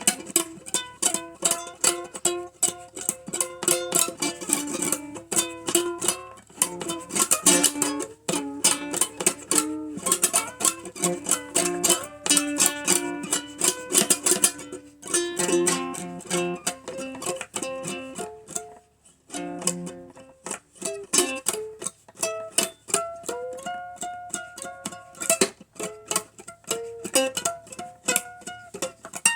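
Ukulele played solo: a blues tune, strummed and picked in a quick rhythm, with a brief pause a little after two-thirds of the way through.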